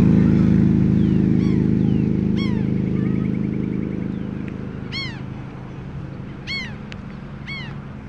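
Gulls calling repeatedly with short, down-curving cries, over the low hum of a vehicle engine that fades away during the first several seconds.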